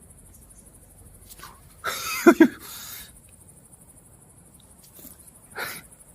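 Insects trilling steadily in a high, pulsing chorus. About two seconds in there is a brief loud pitched cry in two quick pulses, and a smaller short sound comes near the end.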